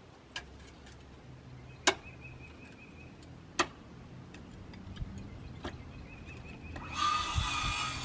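Scattered sharp knocks and taps, a second or two apart, from hand work at the base of a raised wooden cabin, over a faint low hum. About seven seconds in, a louder hissing noise with a steady whine starts.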